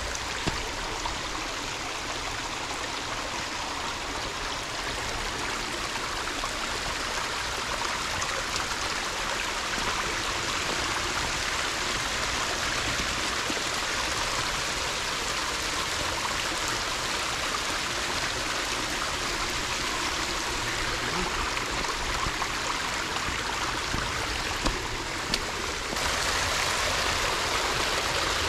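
Shallow rocky creek babbling over stones, a steady rush of running water that steps up louder near the end.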